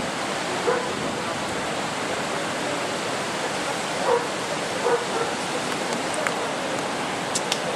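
A dog barking a few short times over a steady rushing hiss.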